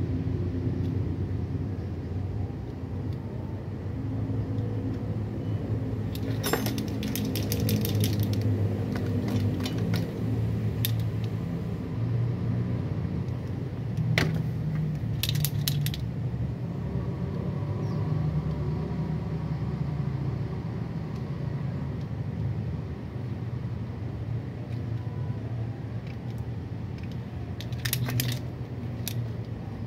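Metal hand tools and parts clinking in short bursts of rapid clicks, several times, over a steady low hum.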